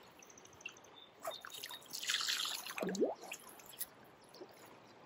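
Water dripping and splashing close by: a few plinking drops and a brief splash about two seconds in, over a faint rush of moving water.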